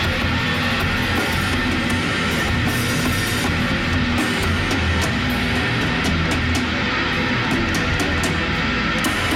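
Loud heavy-metal instrumental: electric guitar over a full drum kit, with frequent sharp drum and cymbal hits over a dense, steady wall of sound.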